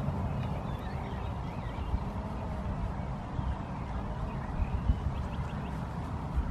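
Low, gusting rumble of wind on the microphone, with faint short bird chirps.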